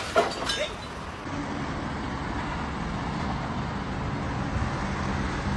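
A short burst of voices, then steady road traffic noise with a low car engine hum.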